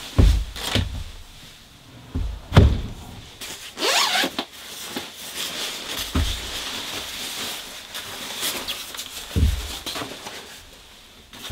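Several dull, low thumps at irregular spacing, with a short rustling hiss about four seconds in.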